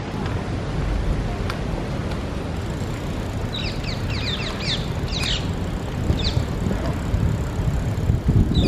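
Steady low rumble of wind and road noise while riding a recumbent bicycle, with a small bird chirping in quick downward notes from about three and a half seconds in and again near the end.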